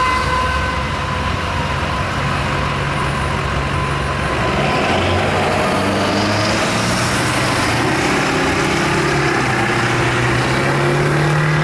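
Pickup trucks' engines pulling away and driving across the railroad crossing as the gates go up, over a steady rushing noise. The crossing's Safetran mechanical bells stop ringing about half a second in.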